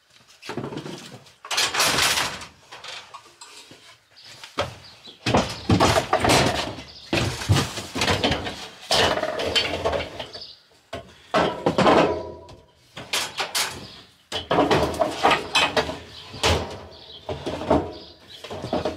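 Irregular knocks, scrapes and clatters of office chairs and other junk being moved about in a van's cargo area.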